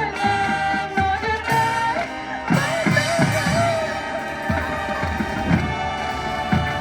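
High school marching band playing: brass and winds holding and sliding through sustained notes over repeated drum hits.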